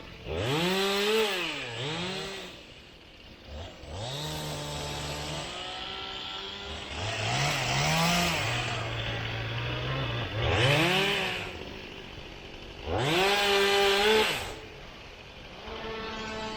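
Chainsaw engine idling and revved up to high speed several times, dropping back to idle between each burst, with the longest and loudest burst near the end.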